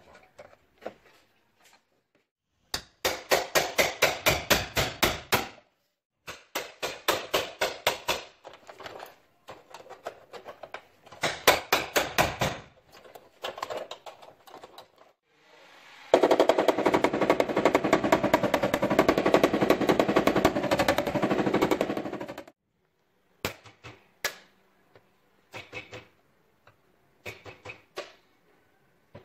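Dent-puller spot welder (spotter) firing on a zigzag pulling wire against a steel car tailgate: three runs of rapid sharp electric cracks, about seven a second. Then a steadier dense crackling lasts about six seconds, followed by a few single clicks near the end.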